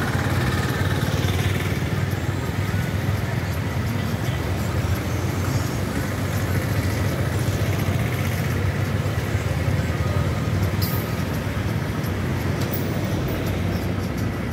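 Road traffic driving past: a motorcycle, a three-wheeler auto-rickshaw, a small pickup truck and a car go by in turn, over a steady low engine rumble.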